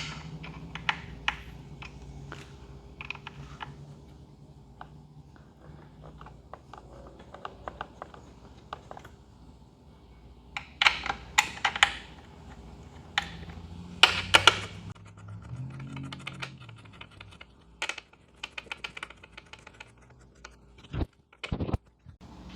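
Scattered light clicks and taps of a 6 mm hex tool driving in the motorcycle's rider-seat bolts, with a few quick runs of clicks about 11 and 14 seconds in.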